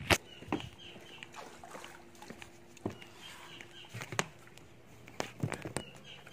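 Irregular clicks and knocks of a phone being handled and moved, the loudest right at the start, over a faint steady hum.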